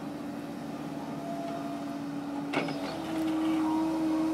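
Kobelco 135SR excavator's diesel engine and hydraulics running steadily as the bucket reaches down into the trench. There is a single sharp knock about two and a half seconds in, and the engine note then steps up slightly in pitch and gets a little louder.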